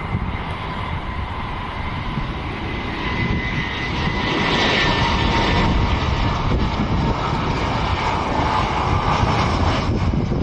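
Twin turbofan engines of an Airbus A320-family jet airliner on landing approach with gear down: a steady rush with a high whine that slides slightly lower in pitch as the jet passes. It grows louder about four seconds in.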